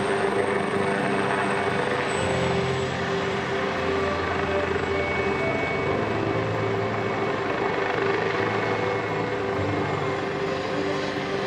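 Air-ambulance helicopter running steadily on the ground, a continuous rotor and turbine drone with a few steady tones held through it.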